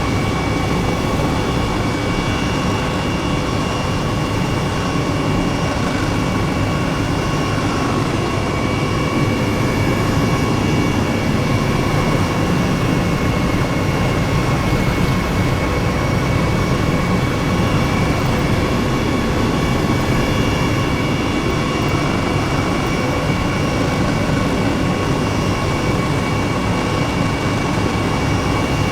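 Jet engine noise, running steadily with a constant high whine.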